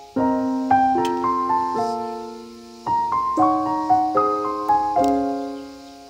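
Solo piano music: a slow melody of struck notes that ring and fade away, with a new phrase starting about three seconds in.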